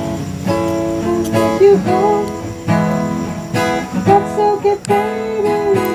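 Background music played on acoustic guitar, plucked and strummed, with some notes sliding up and down in pitch.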